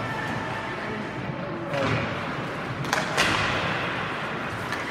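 Sharp clacks of hockey sticks and puck during play, once about two seconds in and twice close together around three seconds, the last the loudest. Behind them is a steady wash of arena noise.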